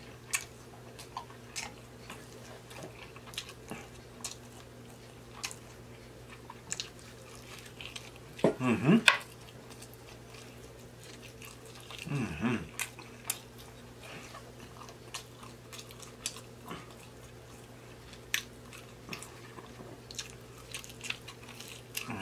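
Close-miked chewing of barbecued baby back ribs: wet mouth clicks and smacks as meat is bitten and chewed off the bone, with two short voice-like hums from the eater about eight and twelve seconds in.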